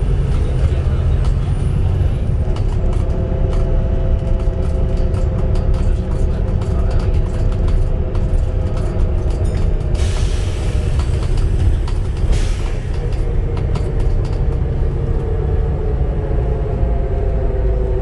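Volvo B7TL double-decker bus under way, heard on board: the drivetrain rumbles, with a whine from the rear axle that drifts slowly in pitch, the sound of a bad axle. Two short hisses of air come about ten and twelve seconds in.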